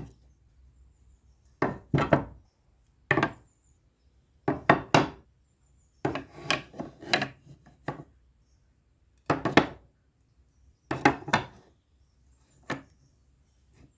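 A series of sharp wooden clacks and knocks, singly or in quick clusters every second or two, as of hard objects being picked up and set down on a wooden surface.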